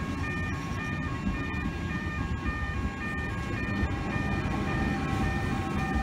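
Railway level crossing warning alarm ringing, a repeating two-pitch electronic bell about three times a second, over the low rumble of a double-deck electric train's wheels and motors passing through the station.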